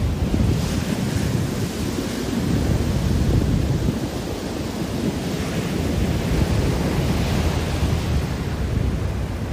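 Ocean surf breaking and foaming up the sand in a continuous wash, swelling as waves break about half a second in and again in the second half. Wind buffets the microphone with a low rumble underneath.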